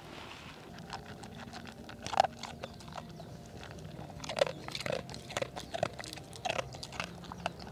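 A dog eating from a bowl: irregular crunching and chewing, loudest about two seconds in.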